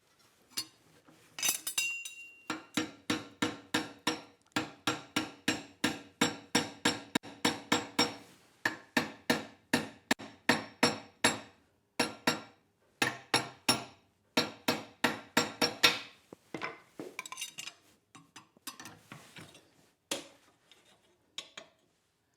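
Hand hammer striking hot steel on an anvil in steady runs of ringing blows, about two to three a second, flattening the top of a forged bottle opener. The blows give way to lighter, scattered taps in the last few seconds.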